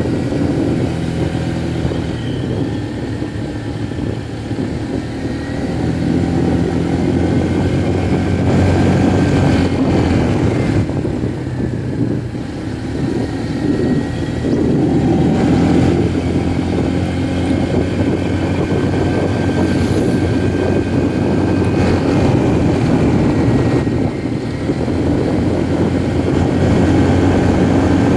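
Motorbike engine running steadily while riding along a road, with wind and road noise, its loudness easing and picking up a little now and then.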